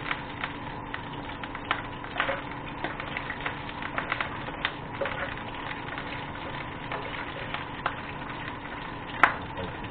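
Chicken cooking in a pan: a steady hiss with scattered crackling pops, and one sharp click near the end.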